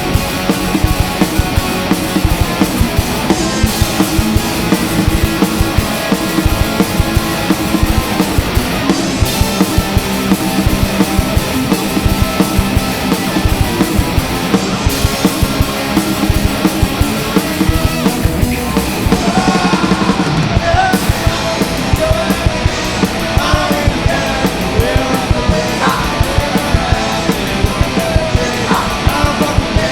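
Punk rock band playing: fast, steady drums under guitars, with a voice singing from about two-thirds of the way through.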